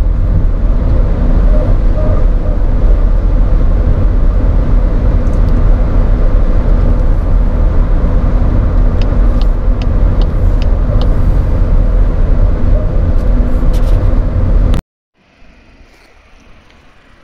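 A VW Golf Mk8.5 Variant with the 1.5 eTSI turbo petrol engine on the move: loud, steady low road-and-engine rumble, with a few light clicks about two-thirds of the way through. It cuts off abruptly near the end, leaving only a faint hum.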